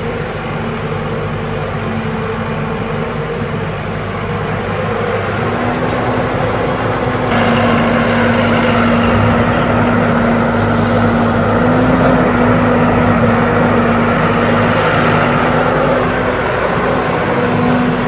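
Caterpillar excavator's diesel engine running steadily while the machine digs; about seven seconds in the engine note climbs and grows louder as it works harder.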